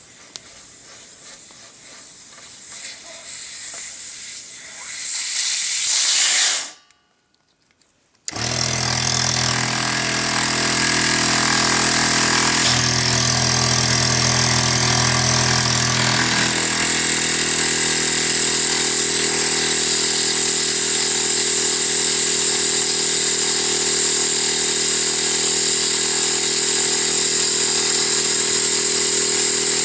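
Compressed air hissing out at the check valve of a 12 V direct-drive piston air compressor, growing louder for about six seconds and then cutting off suddenly. After a short gap the compressor motor starts and runs steadily with a low hum, its pitch shifting a few times in the first several seconds; the check valve is staying open, so the air is not held in the tank.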